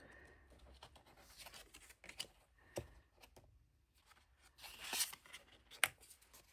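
Tarot cards being handled and laid down on a table: a few light taps and clicks, with a short papery swish of a card sliding about five seconds in, followed by the sharpest tap.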